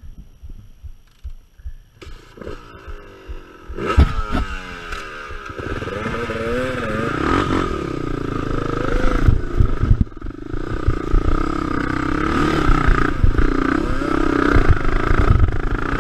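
Dirt bike engine revving up about two seconds in, then pulling hard up deep sandy ruts with the throttle rising and falling, dipping briefly around ten seconds in.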